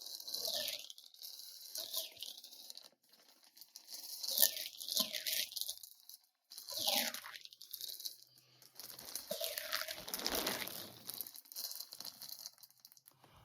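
Bag crinkling and rustling in irregular bursts as yarn skeins are handled and pulled out of it.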